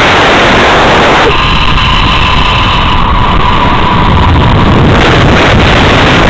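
Loud wind rushing over the microphone of a rider speeding down a zip line, with a steady whine from the trolley's pulleys running on the steel cable from about a second in until near the end.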